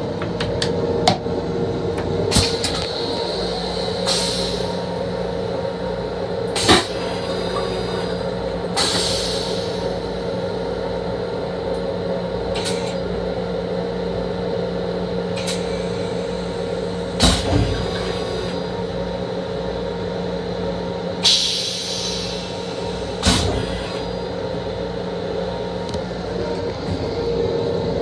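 Steady hum and rumble of an M7 electric railcar heard from inside its small restroom, with occasional sharp knocks and rattles and a few short hissing bursts.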